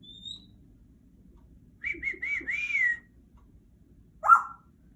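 Congo African grey parrot whistling: a brief high rising note, then four short arched whistled notes in a row, then one loud quick upward-sweeping call near the end.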